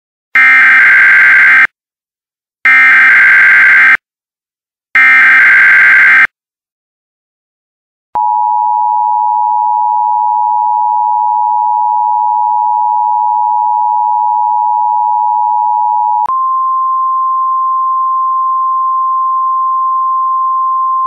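Emergency Alert System tones. First come three short, harsh bursts of SAME header data, each lasting a little over a second. After a pause, the steady two-tone EAS attention signal sounds for about eight seconds and then switches to a single, slightly higher steady tone, the weather-radio alert tone.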